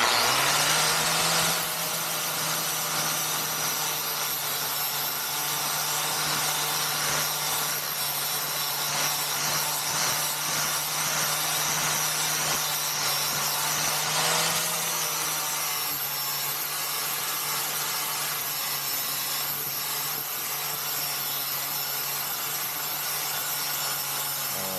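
Angle grinder with a Tiger abrasive disc grinding road rash off the lip of a wheel rim. It starts abruptly and runs steadily, with a brief sag in pitch about halfway through.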